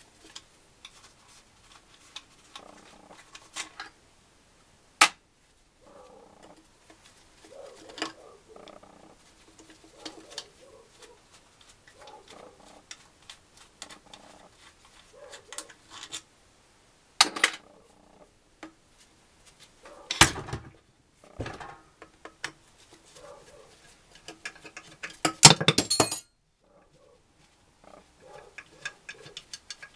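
Metal tools and parts clicking, scraping and clinking on the alloy casing of an NSU Max 250 engine being taken apart by hand. The clicks are irregular, with one sharp click about five seconds in and louder scraping clatters later, the loudest a rattling scrape of about a second near the end.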